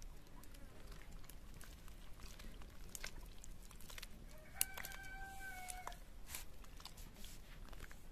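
A rooster crows once about halfway through, one held call lasting about a second and a half, over faint wet squelching and clicking of a hand mixing besan batter in a steel bowl.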